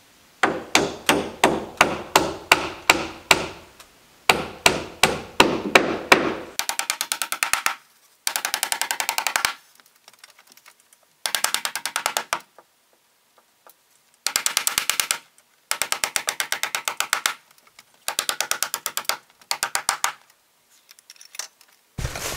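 Hammer driving nails into wooden trim boards: a steady run of blows about three a second, then several short bursts of rapid, evenly spaced knocking with pauses between them.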